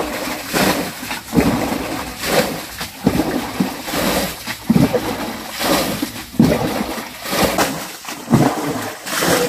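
Water splashing in a steady rhythm, about once a second, in a shallow muddy creek pool.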